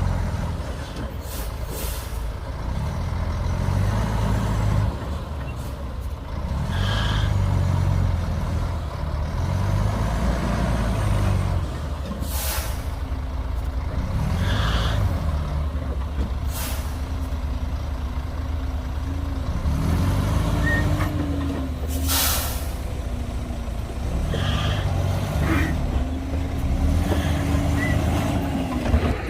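Heavy diesel earthmoving machinery (bulldozers and dump trucks) running under load, the engines' deep rumble rising and falling. Several short, sharp hissing bursts cut through, and a wavering whine comes in during the second half.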